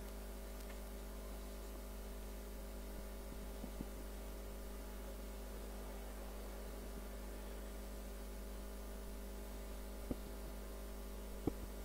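Steady electrical mains hum from the sound system, with a few faint short knocks: one about four seconds in and two near the end.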